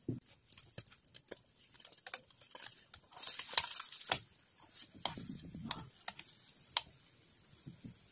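A spatula clicking and scraping against a nonstick frying pan as an egg-coated tortilla is turned over. There is a louder burst of scraping noise about three and a half seconds in, when the tortilla is lifted.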